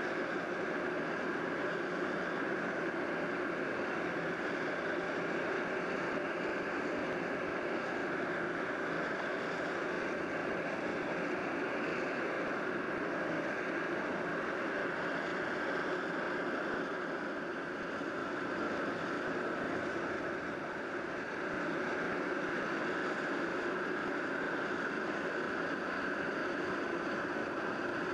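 Steady engine drone with a hiss over it, holding the same pitch throughout, on a hovercraft's car deck. It dips slightly in level about two-thirds of the way through.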